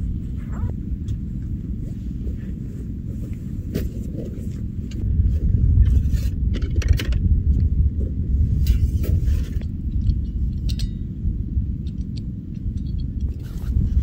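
Wind buffeting the microphone as a low, uneven rumble that grows stronger about a third of the way in. Scattered light clicks, knocks and scrapes come from gear being handled at a pop-up ice-fishing shelter.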